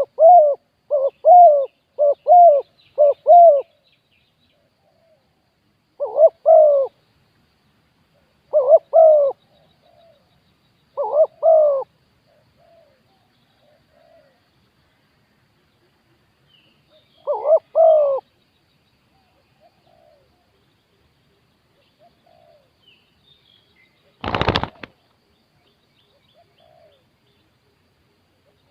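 Spotted dove, a caged decoy, cooing: a quick run of coos at the start, then paired coos every few seconds. About 24 seconds in comes a sudden half-second clatter, the loudest sound.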